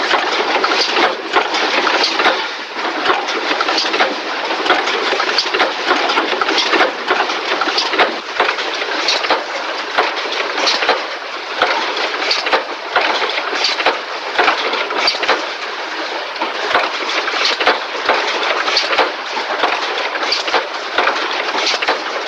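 Factory assembly-line din: a steady clattering noise dense with sharp, irregular clicks and knocks from machinery and parts being handled.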